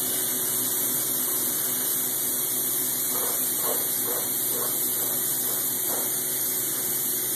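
Steady, unbroken hiss of spray polyurethane foam insulation equipment at work.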